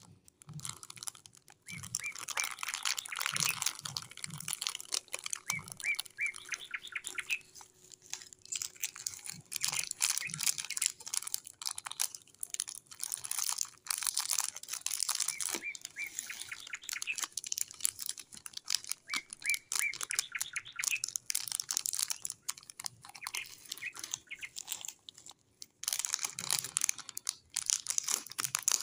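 Plastic snack wrappers crinkling as fingers handle and turn the packets: a stream of small crackles with short pauses between handlings.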